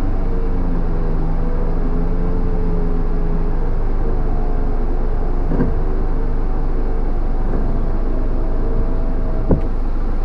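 Electric 4x4 recovery winch running, a steady motor whine over a low hum as it draws in the line to pull a dead vehicle up the hill. Its pitch shifts slightly about four seconds in, with two faint knocks in the second half.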